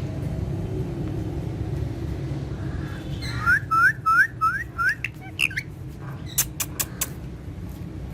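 Ringneck parrot calling: a run of five short rising chirps about halfway in, a couple of higher notes, then a quick series of sharp clicks near the end, over a low steady hum.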